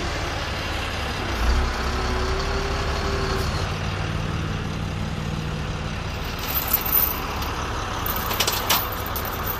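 A truck engine idling steadily. Near the end come several sharp metallic clinks of a steel tow chain being handled.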